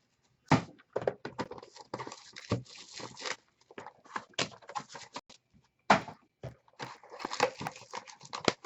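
Irregular clicks, taps and short scraping rustles of objects being handled on a table, coming in quick clusters with brief gaps.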